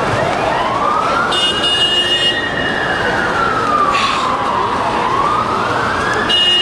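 Emergency vehicle siren in a slow wail, rising, falling and rising again, over steady street noise. A short, high buzzing tone sounds about a second in and again at the end.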